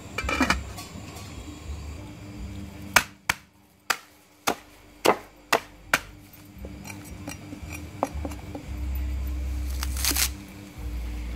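An aluminium pot lid is set down on the pot with a brief clatter. Then a cleaver chops through a bunch of water spinach stems onto a wooden chopping block: about seven sharp chops in quick succession, then lighter, more scattered ones, and one more strong chop near the end.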